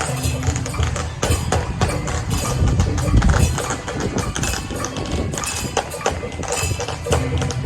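Temple procession percussion band playing loud, fast music: a dense run of rapid strikes, typical of drums, gongs and cymbals, over a steady low ring.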